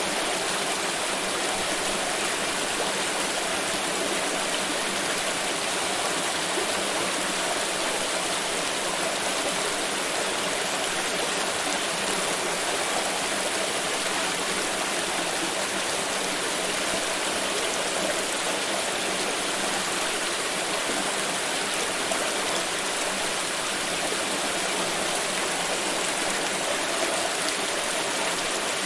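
Water pouring steadily: an even, unbroken splashing flow that holds the same level throughout.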